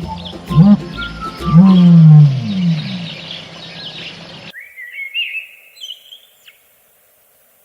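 A large animal's deep calls, three of them rising and falling in pitch and fading out, then an abrupt change to a songbird chirping a few short phrases, which stop near the end.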